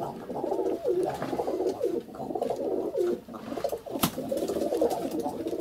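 Domestic pigeons cooing in a loft, a steady run of rolling coos that each end with a falling tail. There is one sharp click about four seconds in.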